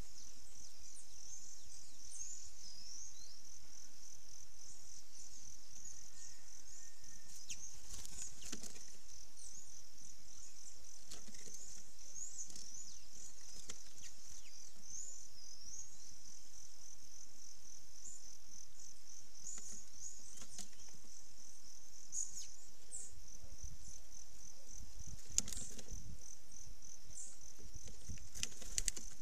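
Steady high-pitched insect chorus, crickets trilling continuously, with short bird chirps and calls over it. A few sharp knocks and low thumps near the end.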